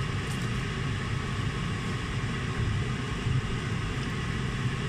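Empanadas deep-frying in a wok of hot oil: a steady sizzle over a steady low rumble.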